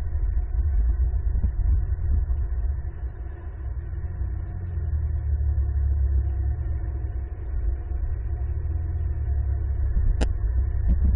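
Steady low rumble, dipping a little in the middle, with one sharp click about ten seconds in.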